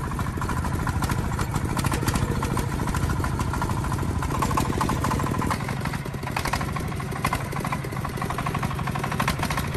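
Diesel engine running steadily with a rapid, even knocking beat.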